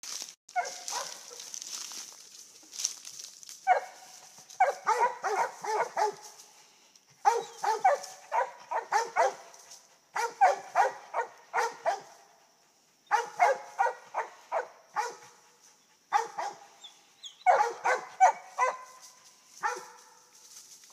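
Feist dogs barking treed at the base of a tree, the sign that they have game up the tree. The barks are quick and high, in bursts of five to eight with a short pause every few seconds.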